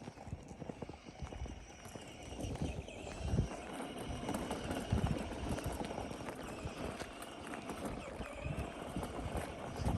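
Footsteps crunching and thudding on a dirt canyon trail while walking, an irregular run of low thumps.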